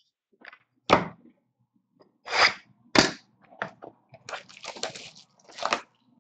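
Cardboard hobby boxes being handled: several sharp clacks and a scrape as a box is pulled off the stack, then lighter clicks and rustling of the box and packaging.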